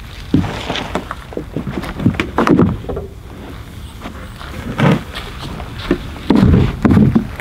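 Irregular thuds and knocks of a person stepping into a beached canoe and setting gear down in its hull, the loudest clusters about two seconds in and again after six seconds.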